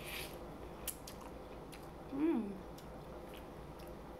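A brief slurp of noodle soup off a spoon at the start, then quiet mouth-closed chewing with faint clicks. About two seconds in there is a short hummed "mm" that rises and then falls in pitch.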